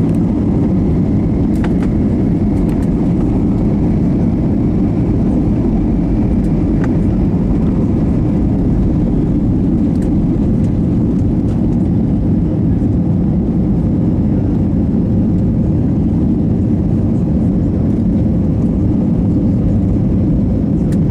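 Steady cabin roar of an Airbus A321neo's Pratt & Whitney geared turbofan engines at takeoff power as the airliner rolls down the runway and lifts off. A faint high whine fades out over the first several seconds.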